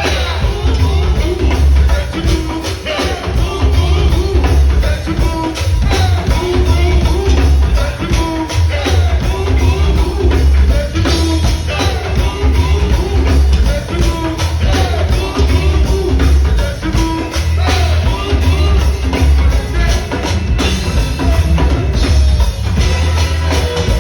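Live go-go band music, loud: a deep bass line under a dense, driving drum and percussion groove.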